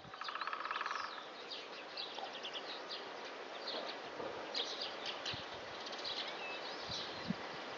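Great spotted woodpecker drumming: one rapid roll lasting about a second at the start, with small birds chirping and calling in high pitches throughout.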